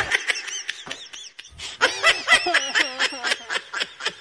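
Laughter: a quick run of short, rising-and-falling giggling syllables that starts about a second and a half in.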